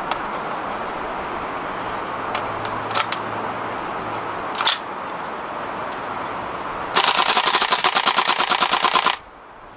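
WE MP5 SD6 gas blowback airsoft submachine gun fired on full auto without BBs: a rapid rattle of bolt cycles lasting about two seconds that stops abruptly, after a few sharp handling clicks. The rate of fire is slightly uneven, which the owner puts down to low gas pressure in cool weather.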